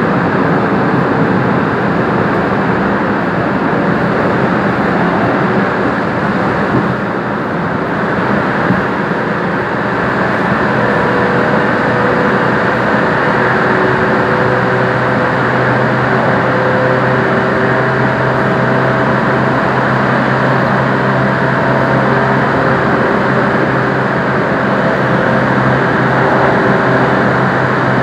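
Korail Class 351000 electric train running through a tunnel, heard from inside the car: a loud, steady rumble of wheels on rail, with a few steady whining tones coming in about halfway.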